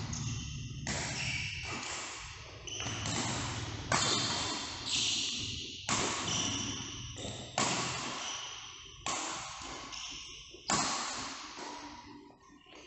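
Badminton rackets striking a shuttlecock in a rally: about seven sharp hits, one every one and a half to two seconds, each echoing briefly.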